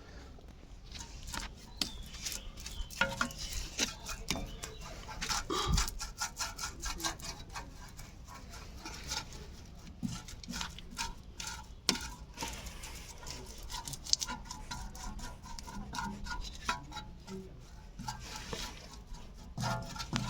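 Irregular small clicks, clinks and rubbing of metal brake parts and hand tools being handled, with a few sharper knocks.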